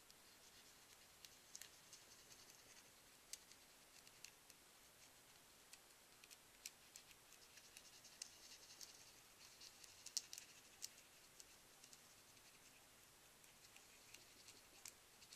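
Near silence with faint, scattered ticks and scratches: the tip of a Stickles glitter-glue bottle squeezing out and pushing glue around on a paper balloon cut-out.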